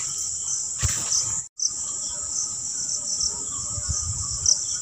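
A steady, high-pitched chorus of crickets chirring at dusk, with a few low thumps and a brief dropout about a second and a half in.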